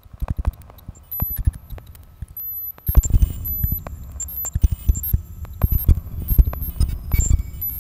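Live generative electronic sound, computed in real time from a Mandelbox fractal algorithm without samples or conventional synthesis: irregular clicks and low thumps that grow denser and louder about three seconds in, with thin high steady tones sounding above them.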